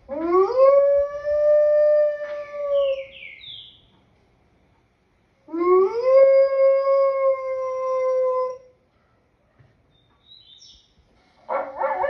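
Wolf howling: two long howls that each rise quickly and then hold a steady pitch for about three seconds, with a third howl starting near the end.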